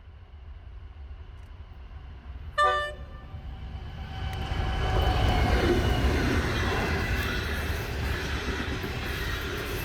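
A train approaching and passing: a low engine rumble builds, a single short horn blast sounds about two and a half seconds in, the loudest moment, then the noise of the train rolling by swells from about four seconds and holds steady.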